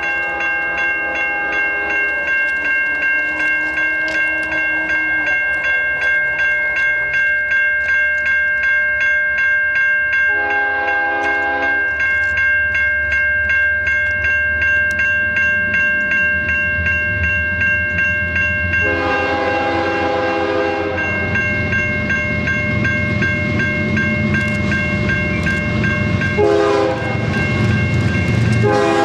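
Grade-crossing signal bells ring steadily while an approaching freight train's lead diesel locomotives sound their air horn three times, the last blast still going at the end. The locomotives' engine noise grows louder from about halfway through.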